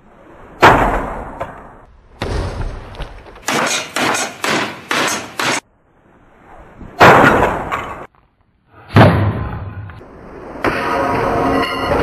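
A run of loud, sudden crashing impacts, like heavy blows smashing objects. There are about ten in all, with a quick volley of strikes in the middle, and each dies away over a second or so.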